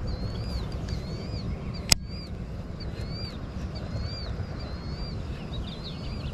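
A bird calling over and over, a short arched chirp about twice a second, over a steady low rumble. A single sharp click about two seconds in.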